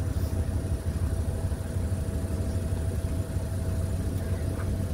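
An engine idling steadily: a low hum with a faint steady whine above it.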